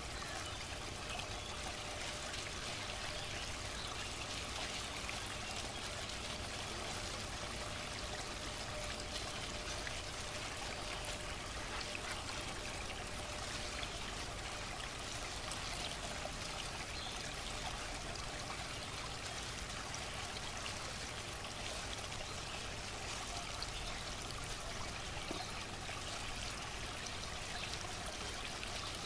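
Steady rush of running water, like a stream flowing.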